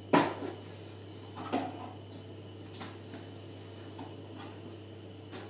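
Two sharp clunks about a second and a half apart, the first the loudest, then a few faint clicks, as kitchen things are handled and set down at a counter. A steady low hum runs underneath.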